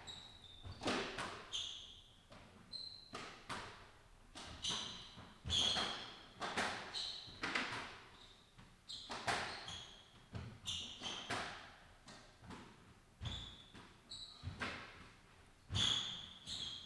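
Squash rally: the ball struck by rackets and hitting the court walls one to two times a second, with short high squeaks of the players' shoes on the hardwood floor.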